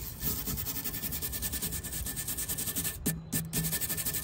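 Small wire brush scrubbed rapidly back and forth over the ceramic rim of a Big Green Egg, a quick rhythmic rasping as it scrapes off old gasket residue. There is a brief pause about three seconds in.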